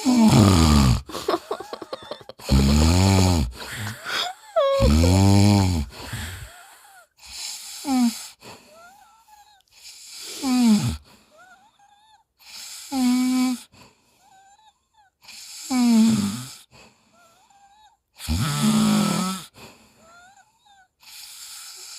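A man snoring in his sleep with squeaky, whining snores that sound like a puppy whimpering or an elephant trumpeting. About nine snores, one every two to three seconds, each a pitched cry that mostly falls in pitch, with faint squeaks between them.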